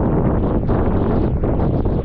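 Wind buffeting the camera microphone aboard a sailboat under way: a loud, steady rumbling rush with no let-up.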